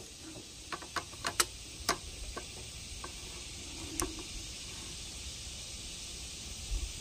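A few light clicks and taps from a steel tape measure and quarter-round trim being handled on a miter saw table, mostly in the first two seconds, with one more about four seconds in, over a steady faint hiss.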